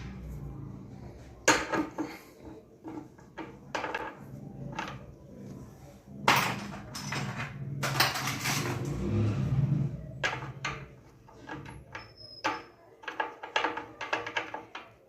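Irregular metallic clinks and knocks of hand tools and engine parts being handled, with a low hum underneath.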